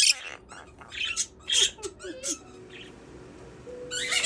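Quaker parrot (monk parakeet) chattering in short high-pitched squawks and chirps, with a loud squawk right at the start, a lull about three seconds in, and more calls near the end.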